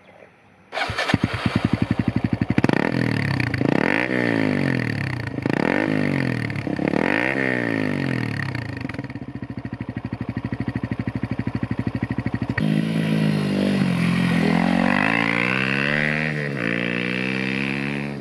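Exhaust of a Kawasaki KLX125's single-cylinder four-stroke engine through a BEAMS R-EVO stainless steel silencer. The engine comes in suddenly about a second in and is revved again and again, its pitch rising and falling, with steadier running between the revs. Around two thirds of the way through, the sound changes and more revs rise and fall.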